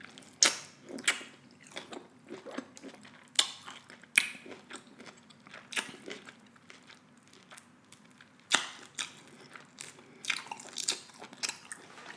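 Close-miked chewing and biting of food, with irregular sharp wet clicks and crunches.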